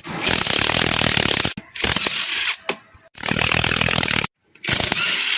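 Impact wrench running in about five short rattling bursts with brief pauses between, spinning off the bolts of a wheel's brake assembly.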